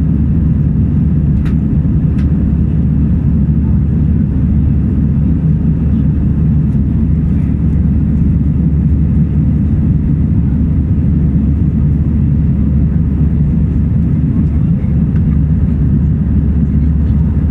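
Airbus airliner's steady low engine and airflow rumble in flight, even in level throughout. Two faint clicks come about one and a half and two seconds in.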